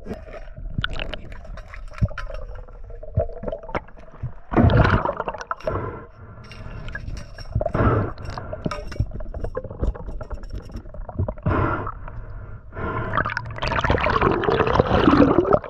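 Water splashing and gurgling in irregular bursts, loudest about five seconds in and again near the end.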